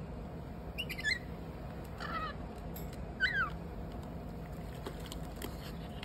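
Lorikeets giving three short chirping calls about a second apart, each a quick up-and-down sweep in pitch, followed by a few faint clicks.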